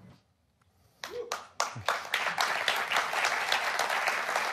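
Near silence for about a second, then a large keynote audience breaks into applause, building into dense, steady clapping.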